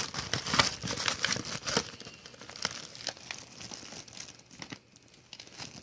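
Crinkly packaging being crumpled and torn open by hand, a dense run of crackles that thins out toward the end.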